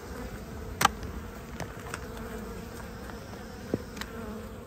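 Honeybee colony in an opened hive, humming steadily, with a few light clicks, the sharpest just under a second in.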